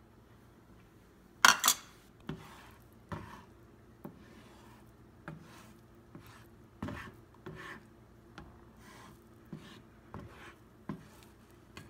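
Slotted plastic spatula scraping and pushing scrambled eggs around a nonstick frying pan, an irregular run of short scrapes and light knocks. The loudest is a sharp double knock about one and a half seconds in.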